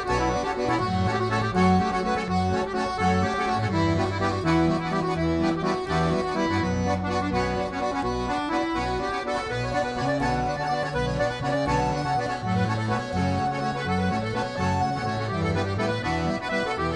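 Instrumental background music led by an accordion, with a steady stepping bass line.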